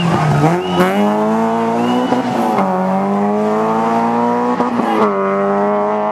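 Rally car engine accelerating hard through the gears, its note climbing and then dropping at two upshifts, about two and a half and five seconds in. Short high squeals sound in the first couple of seconds.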